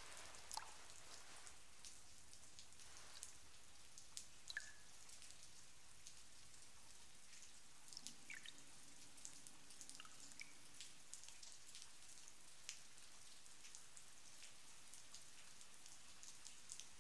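Near silence with faint, scattered water drips and ticks at irregular intervals.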